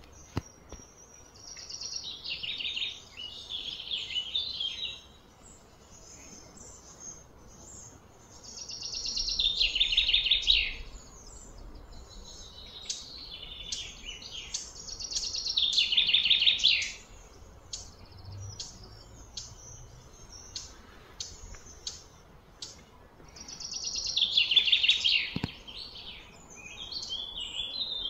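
High-pitched wild animal calls: a buzzy, chirping phrase that swells and fades over about two seconds, heard four times, with short chirps scattered in between.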